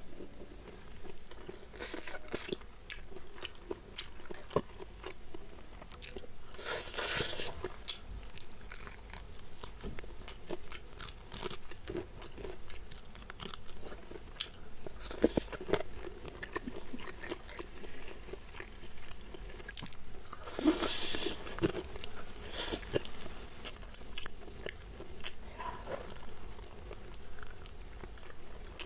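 Close-miked eating: a person chewing and biting crispy fried chicken, with soft wet mouth clicks throughout and two louder crunchy bursts, about a quarter and about two-thirds of the way in.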